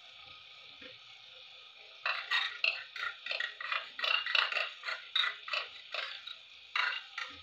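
Vegetables hissing steadily in a hot kadhai. From about two seconds in, a wooden spatula scrapes and knocks against the pan as they are tossed, two or three strokes a second, stopping shortly before the end.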